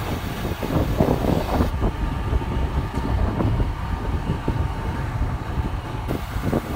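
Riding on a motorcycle: wind buffeting the microphone over the engine and road noise.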